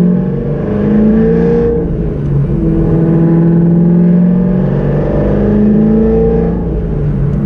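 Cammed LS6 V8 of a C5 Corvette Z06, breathing through long-tube headers, a catless X-pipe and Corsa Extreme exhaust, pulling up through the gears under acceleration, heard from inside the cabin. The engine note climbs, drops at a gear change about two seconds in, climbs again and drops at another change near the end.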